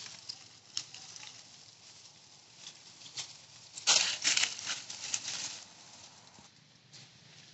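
Scattered light clicks and rustling, with a louder burst of rustling and crackling about four seconds in.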